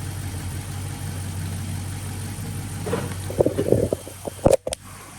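Dodge Charger's Hemi V8 idling steadily. About three seconds in, a run of clatter and knocks comes in, ending in two sharp clicks, and the engine hum drops away briefly near the end.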